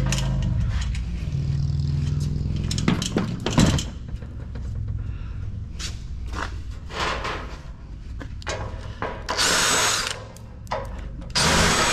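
Power drill running in spurts, with a sharp metal knock about four seconds in, then scattered clicks and knocks of metal parts and two short loud bursts of whirring near the end.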